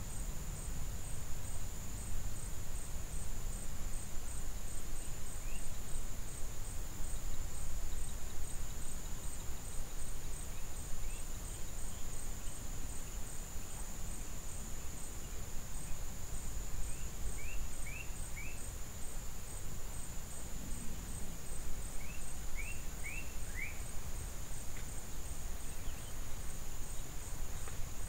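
Steady high-pitched trill of insects over a low rumble, with short chirps in quick runs of three or four about two-thirds of the way through and again near the end.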